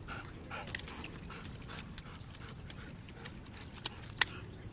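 A husky's claws clicking irregularly on wet wooden dock boards as it walks about, with one sharper, louder click a little past four seconds in.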